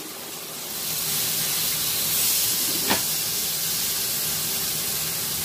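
Ribeye steak sizzling hard in a hot cast iron pan with butter, a steady loud hiss that swells up in the first second and holds. A single light click about halfway through.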